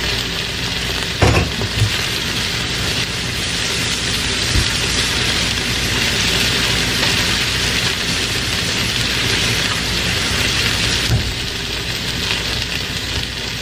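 Diced onion, garlic and peppers sizzling in the stainless steel inner pot of an electric multicooker on its sauté setting: a steady frying hiss. A knock about a second in and another near the end.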